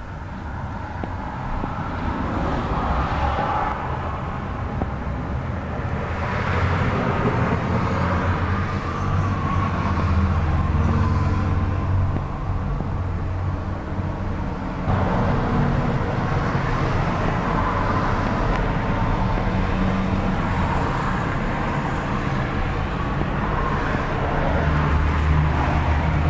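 2012 Chevrolet Tornado pickup's engine running, with a low hum and a rushing noise that swell and ease over time and change abruptly about halfway through.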